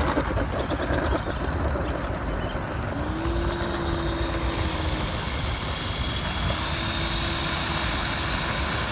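Electric ducted fan of an E-flite F-15 Eagle 64mm RC jet whining in flight, a thin high steady tone that rises slightly about halfway through, over a steady low rumble.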